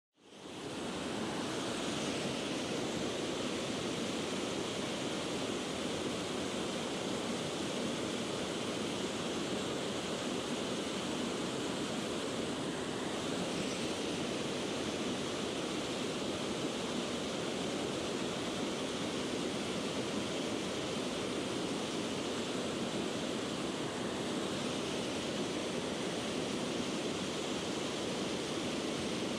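Small waterfall rushing steadily into a pool: an even, unbroken hiss of white water.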